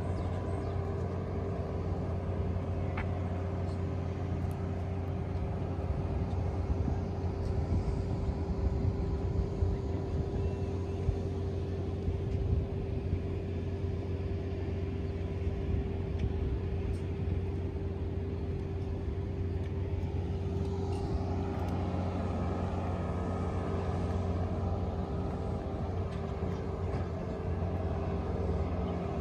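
A steady low mechanical hum, like an engine running at idle, over constant outdoor background noise.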